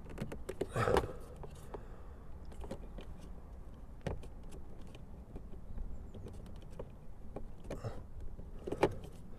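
Scattered small plastic clicks and scrapes as a replacement Renault Clio mirror switch is pushed and worked into its trim panel, with a louder scrape about a second in.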